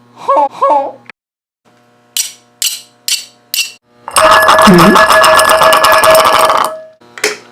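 Homemade foley sound effects for a cartoon: two short squeaks that slide up and down in pitch, then four quick sharp hits, then a loud, harsh, steady noise lasting about two and a half seconds, and one more sharp hit near the end.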